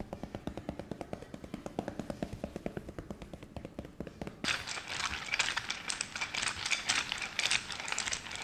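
Hands striking a body in a rapid percussive massage, an even run of taps about six a second. About four seconds in the strikes turn harder and brighter, with a hiss of skin rubbing among them.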